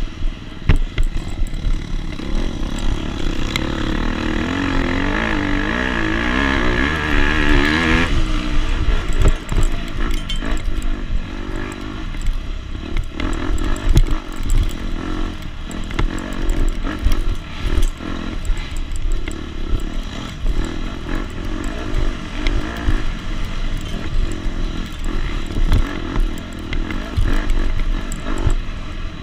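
KTM 250 SX two-stroke dirt bike engine racing off-road, held high for several seconds and chopped off sharply about eight seconds in, then revving up and down with clatter.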